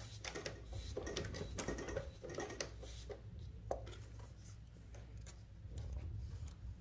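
Light scratching and small clicks of hands and metal tweezers working at the needle of a Cornely L chainstitch embroidery machine, freeing a chain stitch needle caught in thick yarn, with one sharper click about halfway through. A low steady hum runs underneath.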